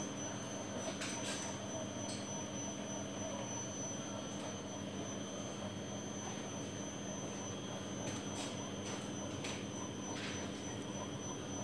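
Steady electrical hum with a thin, high-pitched whine from an energized Yaskawa AC drive and servo motor under test, with a few faint clicks.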